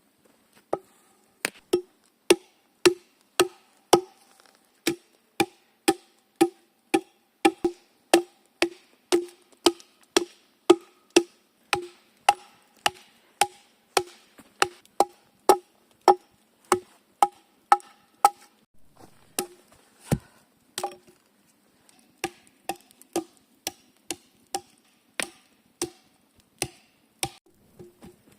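Axe chopping wood in a steady rhythm of about two blows a second, each blow ringing briefly. The blows stop for a few seconds just before the two-thirds mark, with one dull thud, then resume more lightly.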